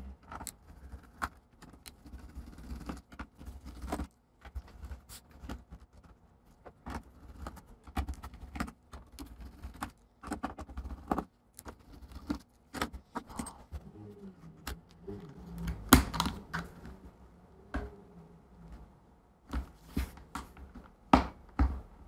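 Irregular light clicks and taps of hand tools and small screws against a laptop's plastic bottom cover as the cover is undone by hand, with a few sharper clicks in the second half.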